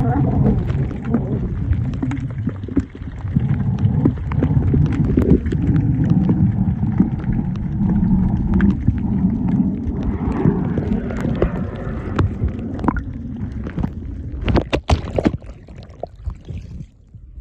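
Water sloshing and gurgling around a submerged camera, a dense low rumble full of small clicks. Near the end the rumble drops away and a few sharp knocks sound, like the housing being bumped.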